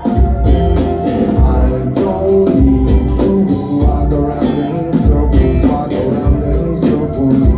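Live band playing a song, with heavy bass and a steady drum beat.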